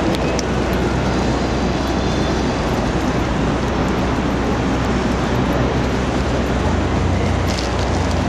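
Steady city street traffic noise, a dense even rumble and hiss of passing vehicles, with a low hum underneath that gets a little stronger near the end.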